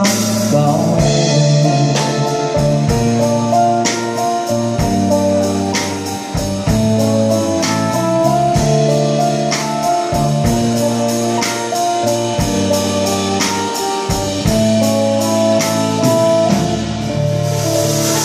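Live band playing an instrumental passage of a slow song without vocals: electric guitar, bass, keyboard and drum kit, with a steady cymbal tick about three times a second.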